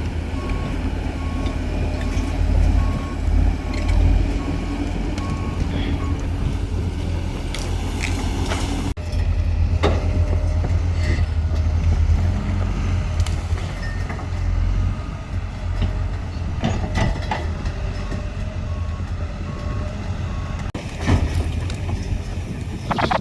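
Pindad hydraulic excavator's diesel engine running with a steady low rumble. Its warning alarm beeps in an even series at the start and again later on, with scattered knocks over the engine.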